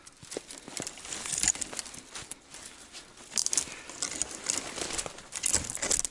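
Footsteps crunching in fresh snow and bare twigs and brush scraping and snapping against clothing while pushing through a thicket, coming in several separate bursts of rustling with sharp clicks.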